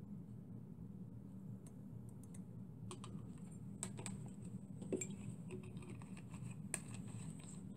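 Scattered light clicks and clinks of a glass bottle and its glass tube being handled and set down on a workbench, over a steady low hum.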